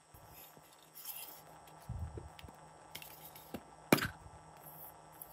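Hands handling and opening a small plastic heart-shaped container, with soft rustles and one sharp plastic click about four seconds in.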